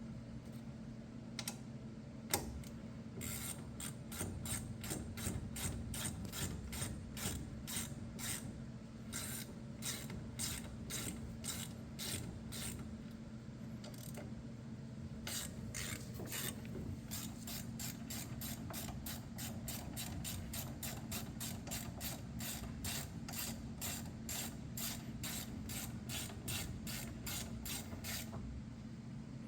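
Hand ratchet clicking in quick runs of strokes as the brake caliper's mounting bolts are run in, with a short pause about halfway. A steady low hum sits underneath.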